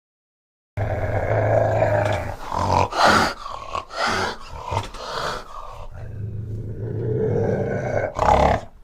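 Bear growling sound effect: a loud, low growl that starts just under a second in and runs in long stretches broken by short pauses.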